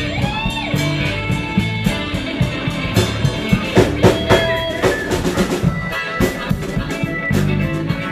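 Live blues band playing an instrumental passage: guitar with bent notes over a drum kit and bass guitar.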